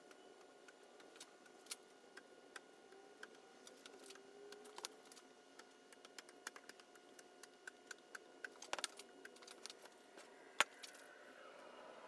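Faint, scattered clicks and light taps of hand tools working on a wooden storm door's glass panel during glazing, with a louder sharp click near the end.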